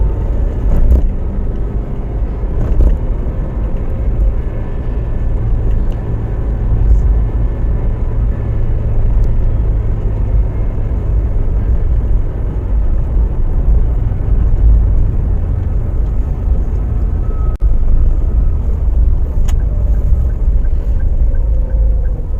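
Car driving along the road: a steady low rumble of engine and road noise. About two-thirds of the way through it eases off as the car slows, then picks up again as it speeds back up.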